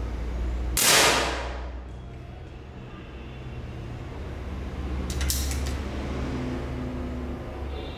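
A single shot from a pre-charged pneumatic 10 m match air pistol about a second in: a sharp pop that dies away over about a second. A few light clicks follow about five seconds in, over a steady low hum.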